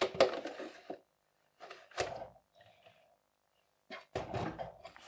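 A 12 V sealed lead-acid battery being slid into a plastic spotlight's battery compartment: the battery case sliding and knocking against the plastic housing in three short bouts, with a sharp click about two seconds in.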